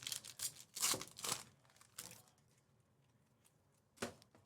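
Crinkling and rustling as trading-card packs and cards are handled, a quick run of short crackles in the first two seconds and one more about four seconds in.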